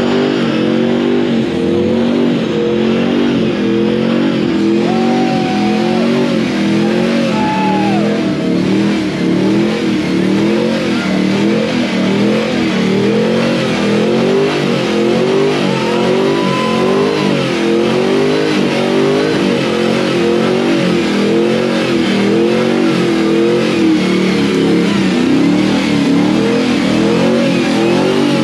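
Car engine revved hard again and again, its pitch swinging up and down about once a second, loud and without a break.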